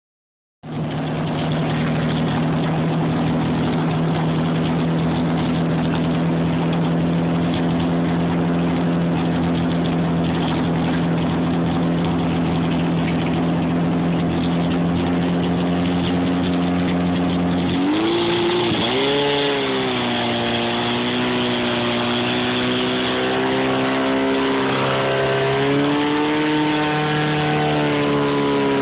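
Portable fire pump's engine running at a steady speed, then revved up at about 18 seconds, its pitch climbing and wavering as it takes up the load of pumping water to the hose lines.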